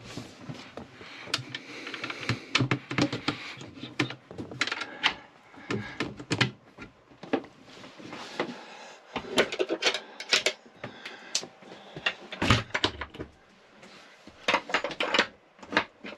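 Wooden engine-room access panels being handled and knocked into place, with chrome slide-bolt latches clicking shut: a string of irregular knocks, clicks and rattles.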